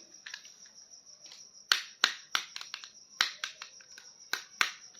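Sharp, irregular clicks and taps of hard plastic toys and packaging being handled, about a dozen of them, over a faint steady high-pitched hiss.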